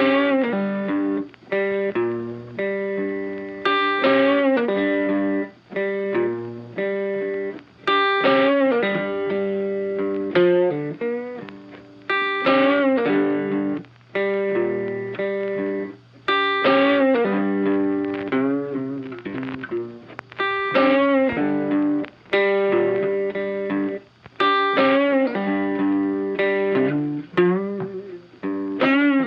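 Funky background music led by an electric guitar with effects, playing phrases of bent notes that repeat about every four seconds.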